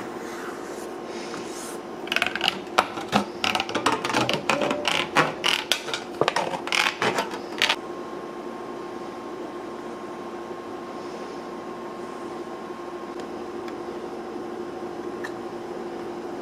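Hand-tool work on a bench: about six seconds of sharp clicks and short scraping strokes, stopping suddenly about eight seconds in. A steady hum runs underneath throughout.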